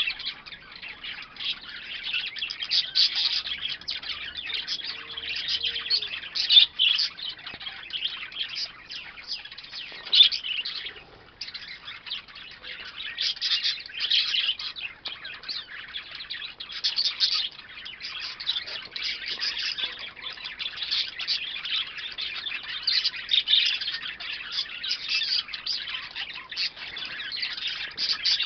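A flock of budgerigars chattering continuously, a dense mix of many overlapping chirps, with a brief lull about eleven seconds in.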